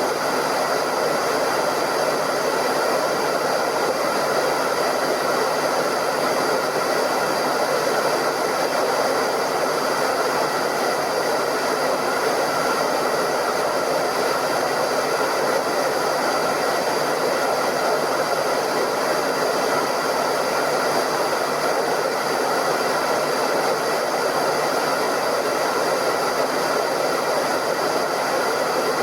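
Hairdryer running steadily: a continuous even rush of blown air with a faint steady motor whine through it.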